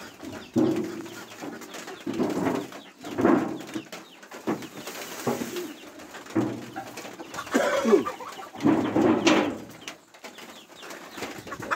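Farmyard fowl calling: hens clucking and doves cooing in short repeated calls, with a few scattered knocks.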